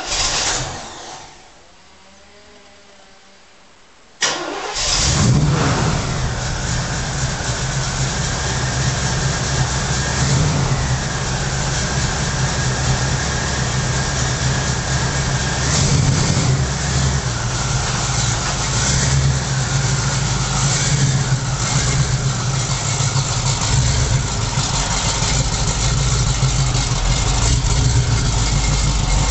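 Cold start of a 1979 Camaro's Weiand-supercharged 350 small-block V8, breathing through aftermarket headers and stock mufflers. A short burst at the very start dies away; about four seconds in the engine cranks and fires, then settles into a steady idle with a few small revs.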